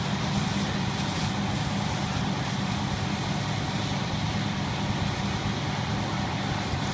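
A fire engine's diesel engine running steadily: a constant low rumble with a hiss above it.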